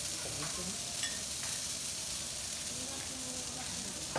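Bean sprouts and greens sizzling steadily on a hot teppanyaki steel griddle as they steam, with a few faint clinks and one sharp click near the end.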